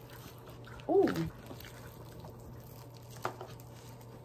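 Quiet handling and eating of battered fried fish: soft wet clicks, the sharpest about three seconds in as the fish is pulled apart. A short "ooh" comes about a second in, over a low steady hum.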